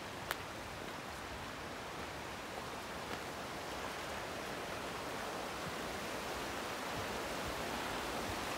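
Small rocky stream rushing over stones, a steady watery hiss that grows gradually louder. A single sharp click just after the start.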